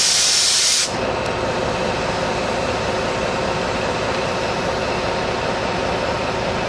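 A loud burst of compressed-air hiss from the train's air brakes, cutting off sharply about a second in. Then the DE 520 diesel-electric locomotive's engine runs steadily with a constant hum.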